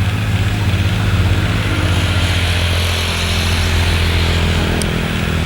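A motor vehicle passing on the road: a steady low engine hum, with tyre and road hiss that swells in the middle and eases off toward the end.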